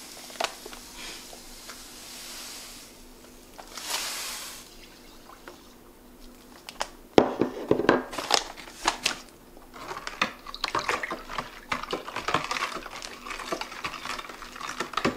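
Granulated sugar poured from a paper bag, hissing into a glass measuring cup and into a plastic pitcher of sorrel, a second pour about four seconds in. Later the bag rustles and knocks are set down, and a spoon stirs the sweetened drink, clicking rapidly against the plastic pitcher.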